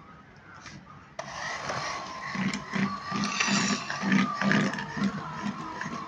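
Electric mixer switched on about a second in. Its motor whines steadily while the beaters churn thick butter, sugar and egg batter, with repeated low thuds from the beaters working the mixture.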